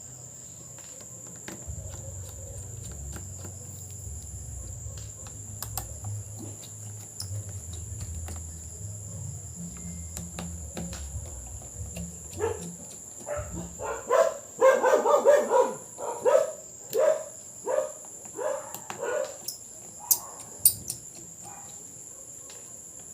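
A dog barking repeatedly in a run of about a dozen short barks, starting about twelve seconds in and stopping near twenty seconds, over light clicking and a low hum.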